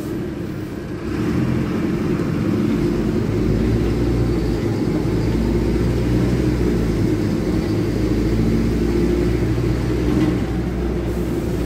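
Mercedes-Benz OH1621L bus's rear-mounted OM-924 LA four-cylinder diesel running with an open, unmuffled exhaust ("escape libre"), heard from inside the cabin near the rear. The engine rumble steps up about a second in and then holds steady.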